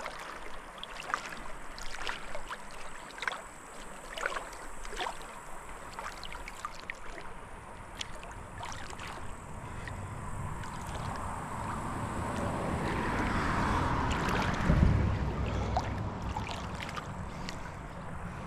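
River water splashing and trickling in many small irregular drips and splashes, then a rush of water noise that swells and fades in the second half, with one low thump near its peak.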